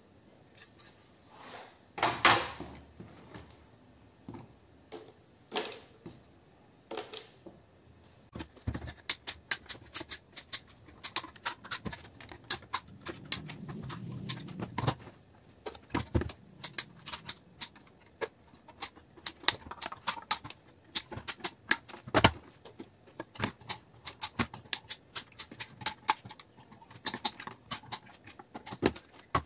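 Hand tools dismantling fluorescent light fittings: a screwdriver and pliers prying at the sheet-metal trays and plastic lamp holders, giving rapid, irregular clicks, taps and scrapes of metal on metal. A loud metal knock comes about two seconds in.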